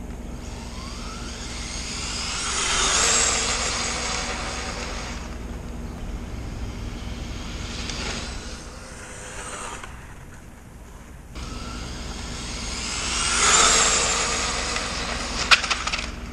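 Brushless-powered RC car (Traxxas 4-Tec with a cheap unbranded brushless motor and ESC) at full throttle on a top-speed run. Its motor whine and tyre noise swell and fade as it passes close by twice, about three seconds in and again near the end.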